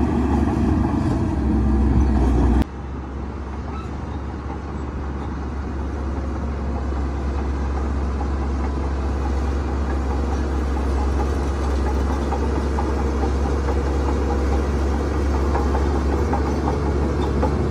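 Heavy earthmoving machinery engine running steadily with a deep rumble. About two and a half seconds in the sound drops abruptly to a quieter engine that grows gradually louder over the next few seconds.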